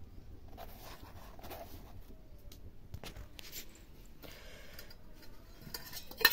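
Faint rustling and handling noise from a hand-held phone being moved around, with scattered soft clicks and one sharp knock near the end.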